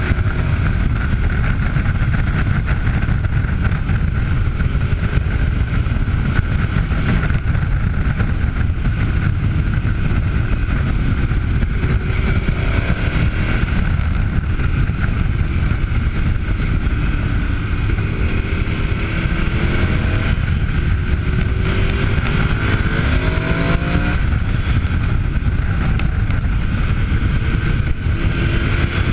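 Riding sound of a KTM adventure motorcycle's V-twin engine under a heavy wind rumble on the camera, the engine note rising and falling several times in the second half as the throttle opens and closes.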